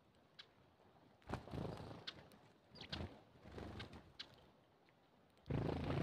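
Russet sparrows giving short, high chirps every second or so while they feed. A few dull, low rumbling sounds come in between, the loudest near the end.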